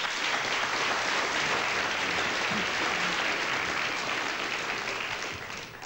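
Studio audience applauding; the clapping dies away near the end.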